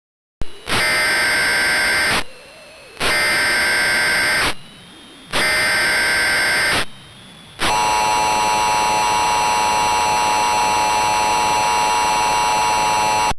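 Emergency Alert System tones: three data bursts of the SAME header, each about a second and a half with short gaps, followed by the steady two-tone attention signal held for about six seconds, which stops abruptly.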